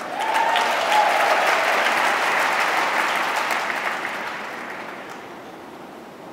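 Large audience applauding, starting suddenly, at its fullest for about three seconds, then dying away.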